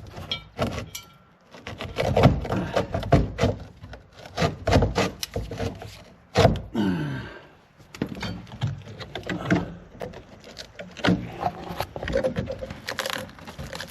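Irregular knocking, clattering and scraping as a strap is shoved through and fished around the underside of the Jeep, with a short falling squeak about six and a half seconds in.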